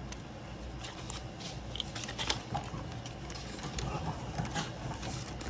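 Paper banknotes rustling and crinkling as they are handled and counted, with scattered light clicks and taps over a low steady hum.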